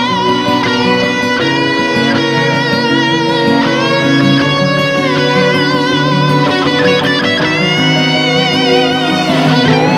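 Slow ballad music led by an electric guitar playing long, wavering held notes with bends, over a low stepping bass line.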